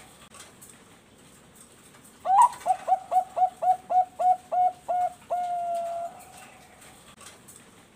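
A Bangkok-line zebra dove (perkutut) singing one full song phrase: a rising first note, then a quick run of about ten short coos, ending in one long drawn-out coo.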